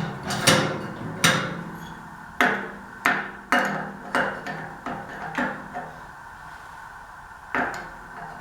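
Irregular sharp metallic knocks and clanks, about ten in the stretch, each ringing briefly: hand tools striking and working against the steel fittings and housing of a gas water heater's burner and gas valve.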